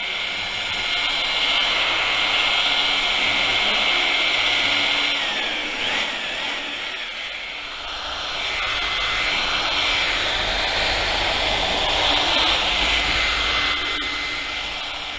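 Corded electric rotary polisher running with its pad pressed on a car's painted back door: a steady high motor whine and pad hiss that swells and fades as the tool is worked across the panel, easing off briefly about halfway through.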